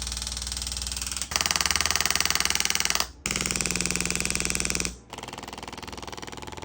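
A small motor-driven device pulsing rapidly and evenly, like a buzzing hammer. It gets louder about a second in, cuts out briefly around three seconds, and falls back to a lower level near five seconds.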